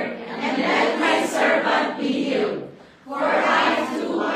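Congregation reading a Bible passage aloud in unison, many voices speaking together in phrases, with a short pause between phrases about three seconds in.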